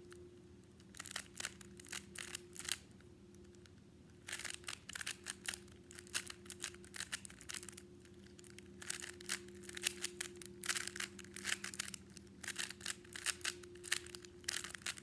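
Rubik's cube being turned fast while it is solved: the plastic layers click and rattle in quick bursts of turns broken by short pauses, over a faint steady hum.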